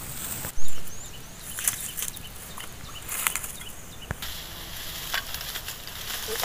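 A metal digging tool knocking and scraping in soil and dry bamboo litter while bamboo shoots are dug out, with one loud thump about half a second in. Short high bird chirps sound over it in the first few seconds.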